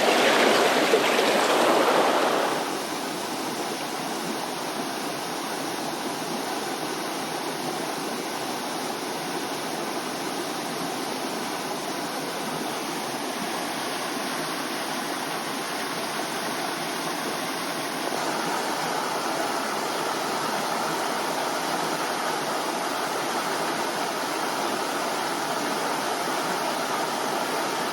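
Mountain stream water rushing steadily, louder for the first two seconds or so and then settling to a lower, even flow.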